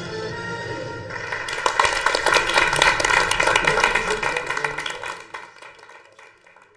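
Theme music playing, then a small group of people clapping from about a second in, with the applause dying away over the last couple of seconds.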